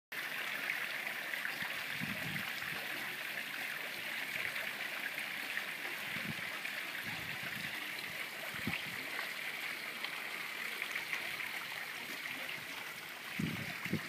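Steady, even hiss of outdoor background noise, with a few faint low bumps. Low gusts of wind on the microphone start near the end.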